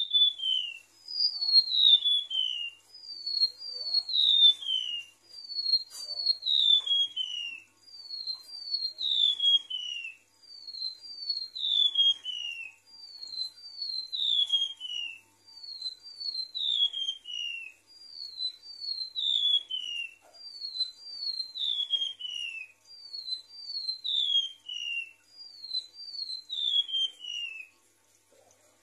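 Golden-bellied gerygone (remetuk laut) song: a thin, high whistled phrase of a few notes, each note falling in pitch, repeated about every two and a half seconds.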